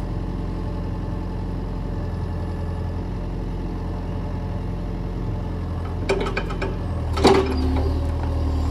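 Hitachi excavator's diesel engine running steadily, then growing louder about seven seconds in as the hydraulics take load. A run of sharp knocks and cracks of wood comes near the end, the loudest just after the engine note rises, as the steel bucket and thumb work against the trees.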